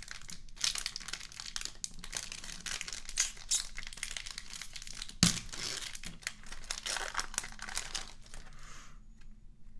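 The foil wrapper of a 2021 Panini Prizm Draft Picks football card pack is torn open and crinkled by hand, making a dense, irregular crackling. One sharp crack about halfway through is the loudest moment. The crackling stops about a second before the end.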